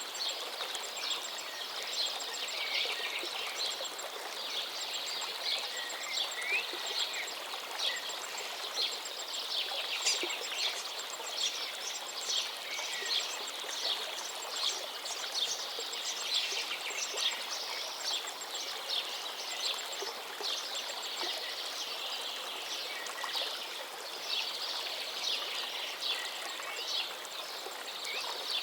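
River water flowing steadily, with many small birds chirping and calling over it throughout.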